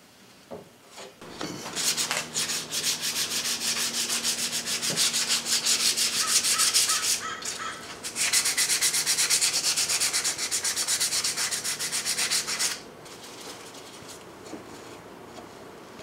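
Wood being hand-sanded with sandpaper in rapid back-and-forth strokes, in two long runs with a short break about seven seconds in. A couple of light knocks come just before the sanding starts.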